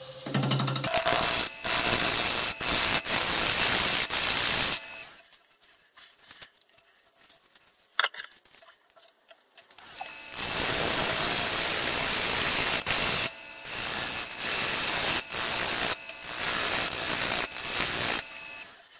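Turning gouge cutting a spinning glued-up madrone and walnut bowl blank on a wood lathe: loud cutting passes with a quiet gap of about five seconds in the middle, then shorter stop-and-start cuts near the end.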